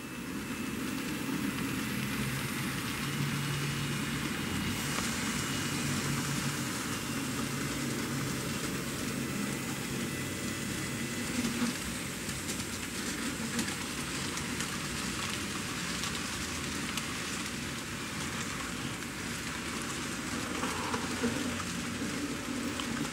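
N-scale model train of autorack cars running past on Kato track: a steady whir and rumble of the locomotive motors and the wheels rolling on the rails.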